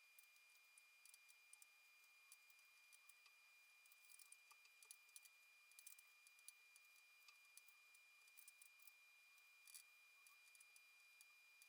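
Near silence: room tone with a faint steady high-pitched tone and scattered faint small clicks.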